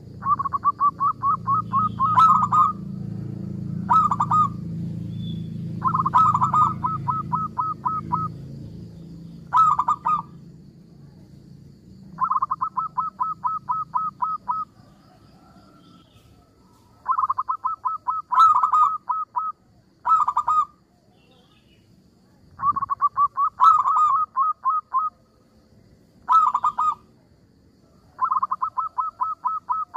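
Zebra dove (perkutut) singing: repeated fast trills of soft, rapid cooing notes, long phrases of about two seconds alternating with short bursts of half a second, with a brief pause about halfway. A low steady hum underlies the first third and fades out.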